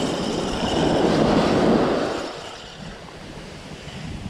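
A wave washing up the sand around the feet, a rushing surge that swells for about a second and a half and then falls away to quieter surf.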